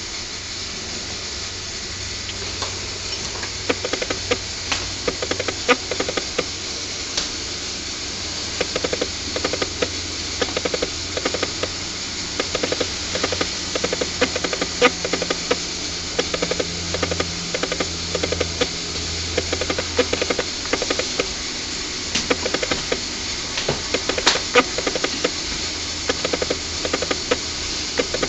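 Berimbau, the capoeira musical bow with a gourd resonator, struck with a stick in a repeated rhythm, under a steady hiss of old videotape.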